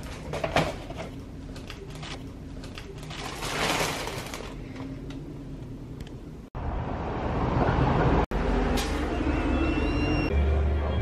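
Paper and plastic shopping bags rustling and crinkling as they are set down on a desk. About six and a half seconds in this cuts suddenly to louder street noise with a steady low traffic rumble.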